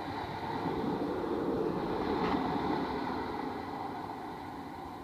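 Single-car diesel passenger train passing directly beneath, its engine and wheels on the rails swelling to a peak about two seconds in, then fading as it runs away.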